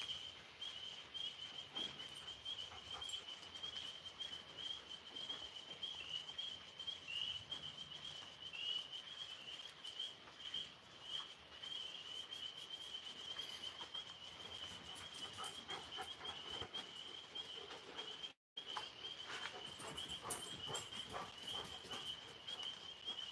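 Night insects chirring in a steady, continuous high chorus, with faint scattered rustles and clicks. The sound drops out for a moment about eighteen seconds in.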